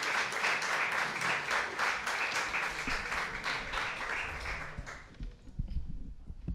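Audience applauding, the clapping dying away about five seconds in, followed by a few soft low thumps and knocks.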